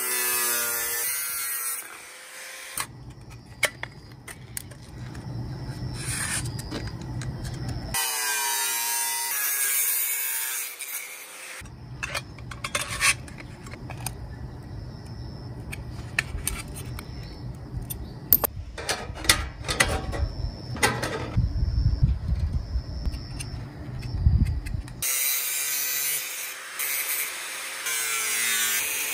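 Angle grinder with a cut-off disc slicing through a thin stainless steel tray, whining in three bursts: at the start, around eight to eleven seconds, and from about twenty-five seconds on. Between the cuts there is scraping and clicking from handling and marking the metal.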